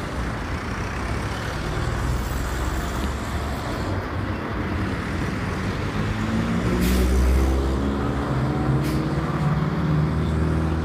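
Street traffic with a Volvo–Marcopolo trolleybus pulling past close by. A low hum rises in pitch over the last few seconds, with two short hisses about seven and nine seconds in.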